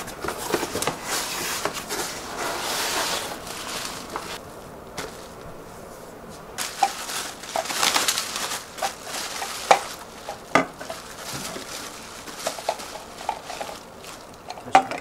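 Bubble wrap and plastic packaging rustling and crinkling in bursts as plastic spray bottles are pulled from a cardboard box and unwrapped, with a few sharp knocks in the second half.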